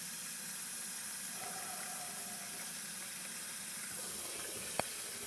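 Kitchen tap running steadily, a continuous hiss of water, with a single sharp click near the end.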